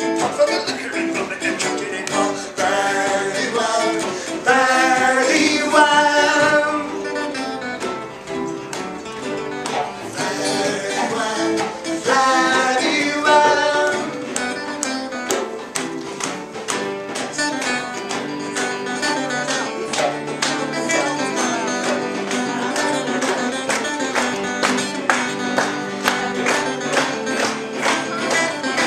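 Live acoustic band: strummed acoustic guitars with a man singing into a microphone. The singing comes in phrases in the first half, and the second half is mostly a steady strummed guitar rhythm.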